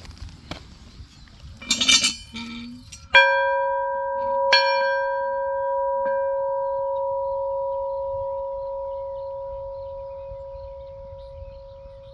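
C.S. Bell Company No. 3 crystal-metal farm bell being rung: after a brief rattle it is struck about three seconds in, again a second and a half later, and more lightly a second and a half after that. It then rings on in a long, steady tone that slowly fades.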